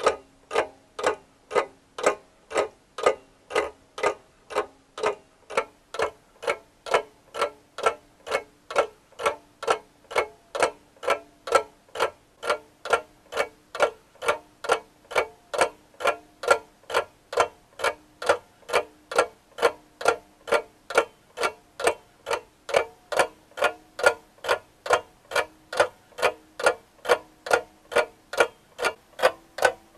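Steady, even ticking, about two ticks a second, with a faint steady low tone underneath.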